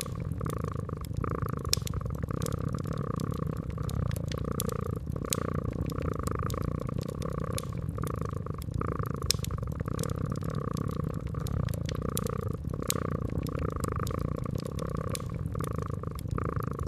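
Cat purring steadily, in an even in-and-out rhythm, with scattered sharp crackles and pops from a wood fire.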